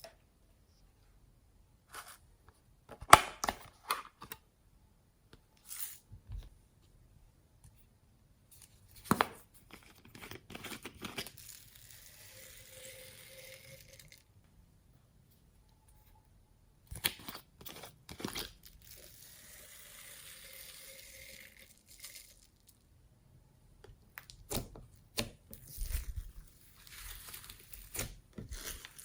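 Slime being handled and mixed with added materials: clusters of sticky crackles and pops with tearing sounds, and soft hissing stretches in between.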